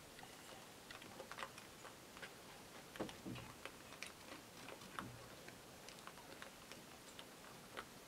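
Wild hogs rooting and feeding on scattered corn on gravelly ground: faint, irregular clicks and crunches, with a few short low grunts about three and five seconds in.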